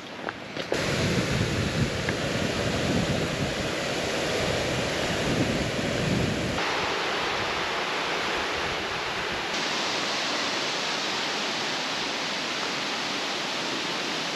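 River water rushing in a steady noise, with a low rumble through the first half that stops abruptly about two-thirds of the way in.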